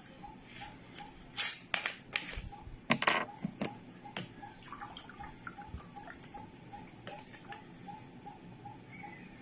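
A steady, even, fast ticking, like a wall clock, with a few short, louder scraping or rustling noises in the first four seconds.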